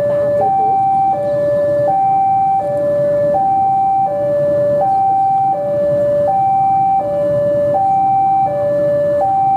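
A two-tone electronic warning alarm alternating steadily between a high and a low note, switching about every 0.7 s, over the low running of a CC 201 diesel locomotive.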